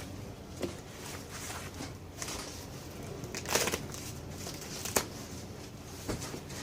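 Packaging rustling and crinkling as parts are unboxed, with a few light clicks and knocks from the parts being handled; the loudest rustle comes about halfway through.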